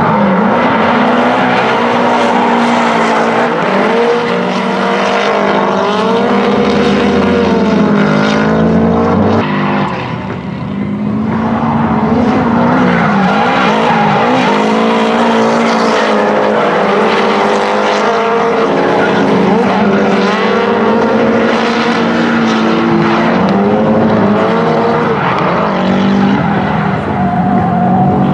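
Several drift cars sliding in close tandem: their engines rev up and down on and off the throttle over the hiss and squeal of the spinning, sliding rear tyres. The sound dips briefly about ten seconds in, then builds again.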